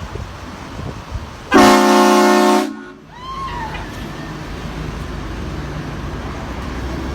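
Train horn blasting one loud chord for a little over a second, starting about a second and a half in, over a steady low engine rumble.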